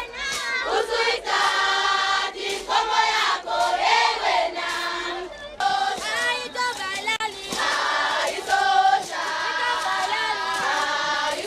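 A group of voices singing together in held phrases with short breaks between them.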